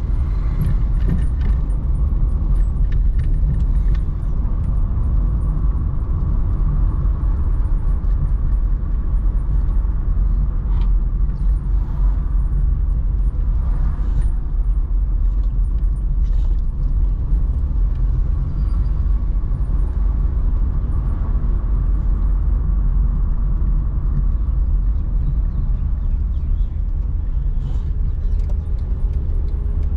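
A car driving: a steady low rumble of engine and road noise, with a few faint ticks scattered through it.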